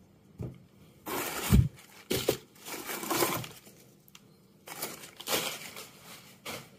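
Crumpled newspaper packing being scrunched and pulled out of a cardboard box, in two spells of crinkling and rustling, with a dull thump about a second and a half in.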